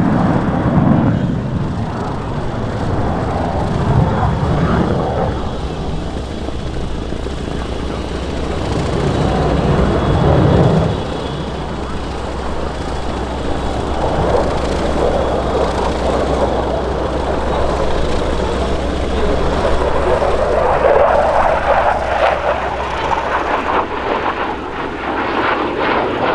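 F-16 Fighting Falcon's jet engine as the fighter flies a display pass: a loud rushing rumble that swells and fades. A deep rumble comes up several times in the first eleven seconds and drops away suddenly, then a stronger rushing roar builds again toward the end.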